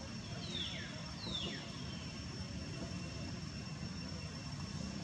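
Two short, high-pitched animal calls, each falling in pitch, over a steady low rumble.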